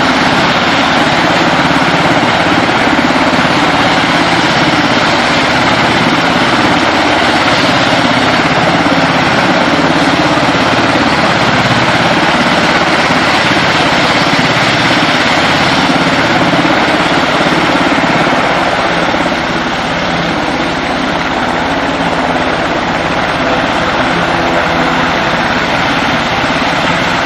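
Sikorsky S-92A helicopter lifting off, its twin turboshaft engines and rotors running loud and steady. The noise eases slightly about two-thirds of the way through.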